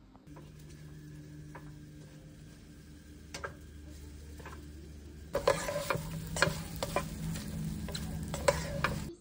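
Food sizzling softly in a frying pan over a low steady hum, with an occasional click. About five seconds in, the frying gets louder as diced eggplant is stirred in a nonstick pan, a spatula scraping and knocking against the pan many times; it stops abruptly near the end.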